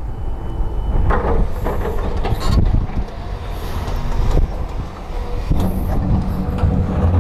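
Caterpillar hydraulic excavator's diesel engine running under load as it digs rocky ground, a heavy steady rumble broken by several sharp clanks and scrapes of the steel bucket against stone.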